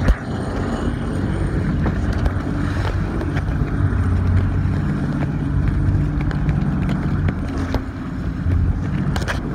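Motorized outrigger boat under way: its engine drones steadily, with wind buffeting the microphone and water rushing and splashing along the hull.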